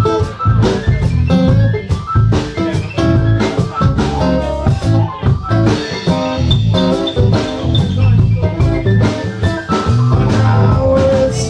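Live band playing an instrumental passage: two acoustic guitars strummed and picked over keyboard, bass and drum kit, with a steady beat.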